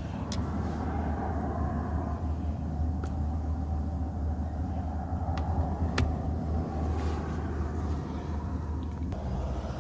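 Steady low rumble with a few light, sharp clicks, about four spread through, from the airbag module being handled as it comes free of the steering wheel.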